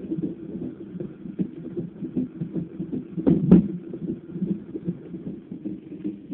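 Fetal heartbeat through a handheld fetal Doppler: a rapid pulsing whoosh of about two to three beats a second. About three and a half seconds in, a sharp double thump stands out, the jolt of the unborn baby hiccupping.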